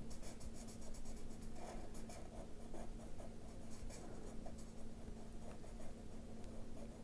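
Black Ohuhu alcohol marker scratching on paper in quick, repeated back-and-forth strokes as it colours in a small area, faint, over a steady low hum.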